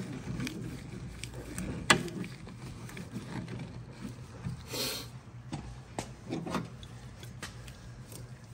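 Sparse clicks and knocks of a hand tool driving in and tightening the Torx screws of a car door's crash sensor, with a sharp click about two seconds in and a brief hiss near the middle.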